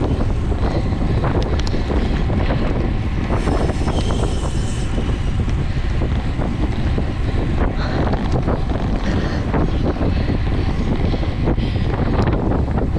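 Wind buffeting the microphone of a camera riding on a racing bicycle at speed, a steady loud rush with road and tyre rumble underneath. Short clicks and rattles from the bike are scattered through it.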